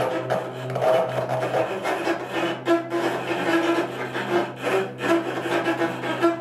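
Free-improvised music for cello and no-input mixing board: a grainy, clicking noise texture over a low steady tone that fades about two seconds in, then a mid-pitched tone pulsing on and off.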